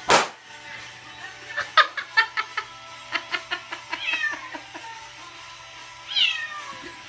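A cat meowing twice, each call sliding down in pitch, about four and six seconds in, over background music. A sharp knock at the start and a quick run of clicks or taps come before the meows.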